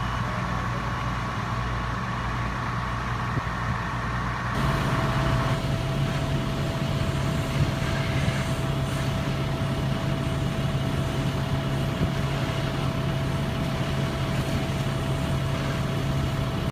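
Fire trucks' engines running steadily with a constant hum. The tone shifts abruptly about four and a half seconds in, then holds steady again.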